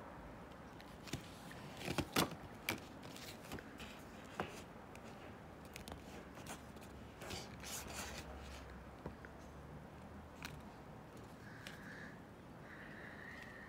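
Coin packaging being handled: card and plastic rustling, with a few sharp clicks and scrapes, the loudest about two seconds in. A thin, steady high tone comes in near the end.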